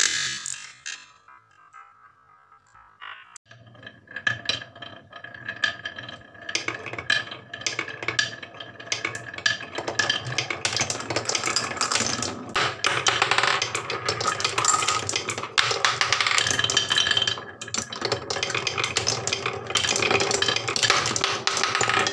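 Wooden marbles rolling down carved wooden wave-groove slopes: a continuous rolling rumble full of clicks and clacks as the balls knock against the wood and each other. A sharp knock at the very start, then about three quieter seconds before the dense rolling sets in.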